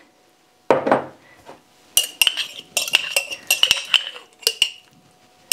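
A metal utensil clinking and scraping against the mouth of a glass canning jar while home-canned turkey is knocked out into a pan: a soft plop about a second in, then a quick run of sharp clinks, many with a short glassy ring.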